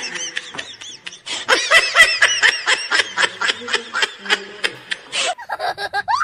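Laughter: a rapid run of short, high-pitched laughs, several to the second, through most of the stretch.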